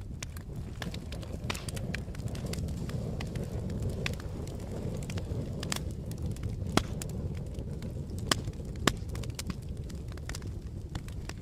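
Campfire burning: a steady low rumble of the flames with irregular crackling, and three sharper pops in the second half.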